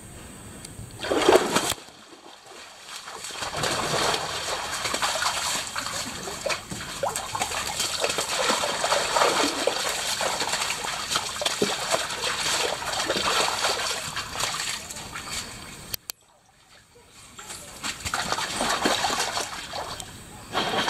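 White tiger splashing in a shallow pool, its water sloshing and splattering: one sharp splash about a second in, then a long continuous run of splashing that stops abruptly and briefly near the end before starting again.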